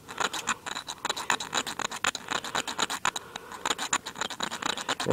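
Steel striker scraping a magnesium fire-starter block in quick, repeated strokes, several a second, shaving off magnesium filings to pile on tinder.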